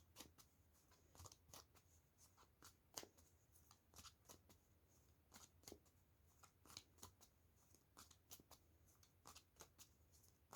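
Faint, irregular soft clicks and ticks of a tarot deck being shuffled and handled by hand.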